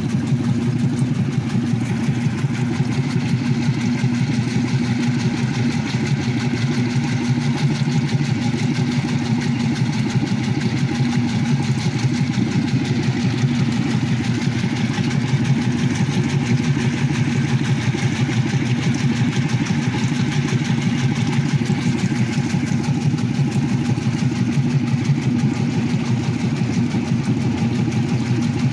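Frigidaire 1-18 top-load washing machine agitating: a steady motor and drive hum under water churning and sloshing in the tub.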